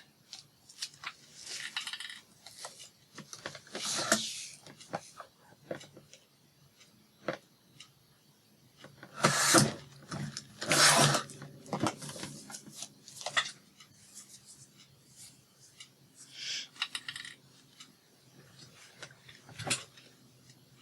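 Paper being cut and handled: short scraping and rustling bursts with scattered clicks, the loudest about halfway through.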